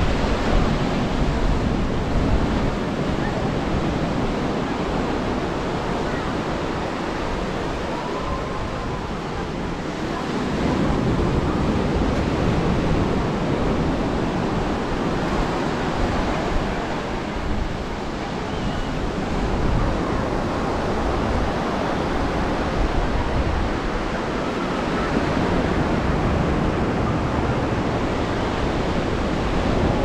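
Ocean surf breaking and washing up on a beach, swelling louder about ten seconds in and again near the end, with wind on the microphone.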